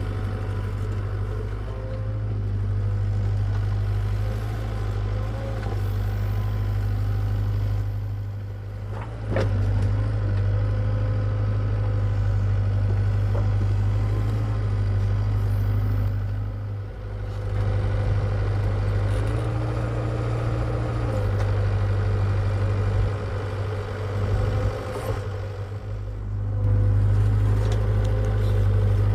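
Hitachi EX75UR excavator's diesel engine running steadily as it digs, its level dipping and swelling a few times. There is one sharp knock about nine seconds in.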